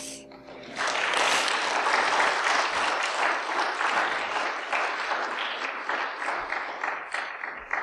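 Church congregation applauding after a hymn. The clapping swells in about a second in and thins out near the end.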